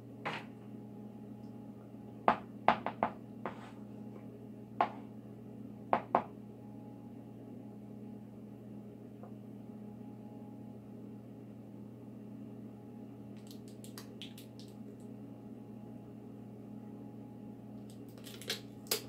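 Scattered clicks and knocks from a jar of Miracle Whip being handled and a wooden spoon working in a plastic mixing bowl, a cluster of them a few seconds in and a couple more near the end. A steady low electrical hum runs underneath.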